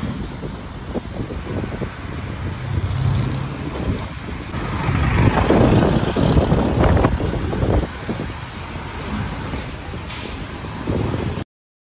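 Outdoor street noise: a motor vehicle running, with wind buffeting the microphone. It is loudest in the middle and cuts off abruptly near the end.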